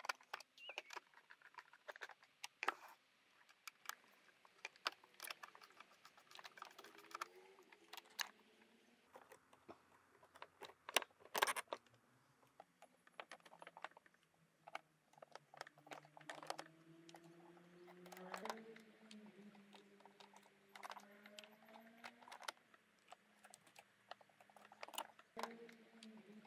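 Irregular light clicks and taps of small plastic and metal parts being handled and fitted as a Citroën DS instrument cluster is reassembled.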